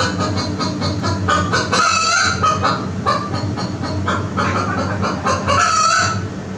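Recorded chicken sound played back for the lesson: hens clucking and squawking in a quick run of short, loud calls that stop near the end.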